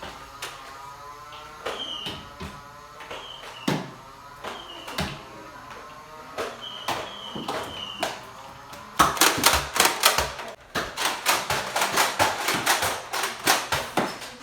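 Scattered sharp clicks and knocks with a few short, high falling chirps. About nine seconds in, these give way to a fast run of sharp clacks, several a second.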